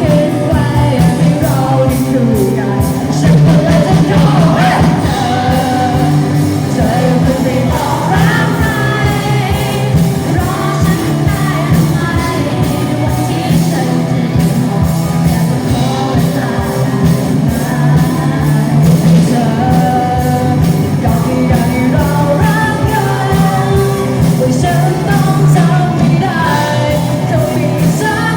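A band playing a pop-rock song with a lead singer, over a steady drum beat and bass.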